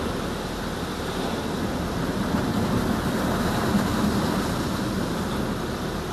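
High-pressure water jets of a LaserWash touchless automatic car wash spraying the car's windshield and body, heard from inside the cabin as a steady rushing spray. The spray washes the soap foam off the glass.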